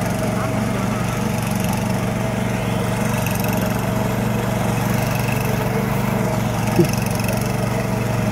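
Small mini-tiller engine running steadily at an even speed.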